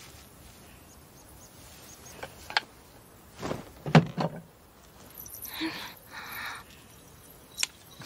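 A handful of sparse clicks and knocks from a wooden crossbow being worked and shot, the sharpest knock about four seconds in. It is followed by two short rushing sounds.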